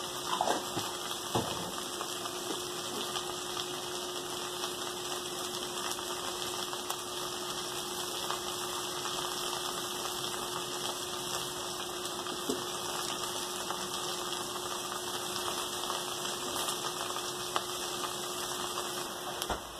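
Okra and onion cooking in an aluminium pot on the stove: a steady sizzle with a faint low hum beneath it. A couple of light taps sound in the first second or two.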